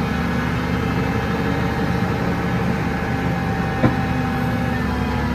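A tractor's engine running at steady revs, with a single short knock just under four seconds in.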